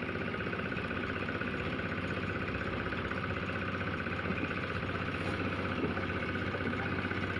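An engine running steadily at an even speed, with a constant hum and a fine rapid pulse.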